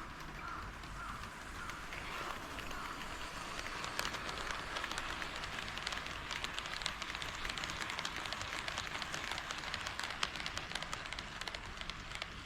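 A model level-crossing alarm dings about twice a second and fades out in the first couple of seconds. Then an HO-scale model train rolls past on KATO Unitrack: a dense rattle of wheels full of sharp clicks, louder from about four seconds in.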